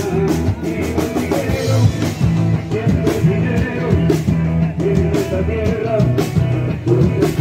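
Rock music with a drum kit and guitar playing steadily.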